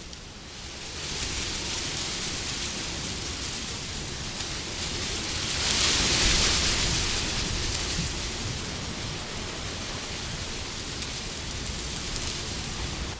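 Wind blowing as a steady rushing noise, swelling into a stronger gust about six seconds in and then easing off.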